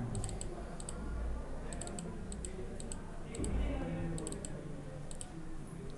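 Computer clicking in quick groups of two or three, several times over, over a steady low hum.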